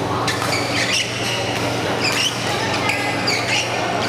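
Short, high squeaks of court shoes on the badminton court floor, many in a row, over a crowd murmur and a steady low hum.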